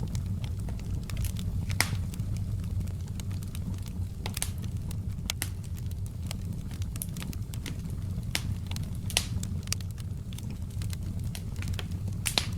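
Fire crackling in a fireplace: irregular sharp pops and snaps over a steady low rumble of the flames.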